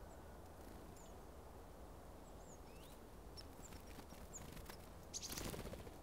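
Faint outdoor ambience with a steady low rumble and scattered short, high chirps from small songbirds. About five seconds in comes a brief, louder fluttering rush: wingbeats of birds taking off from the feeder.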